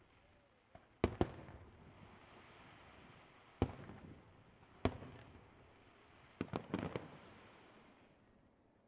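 Fireworks bursting overhead: two sharp bangs in quick succession about a second in, single bangs a few seconds later, then a quick cluster of about five bangs. A rumbling echo trails after each.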